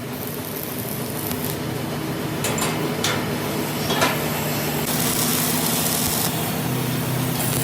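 A workshop machine's electric motor running with a steady hum. A few sharp metallic clicks come about halfway in, and a hissing noise joins it twice in the second half.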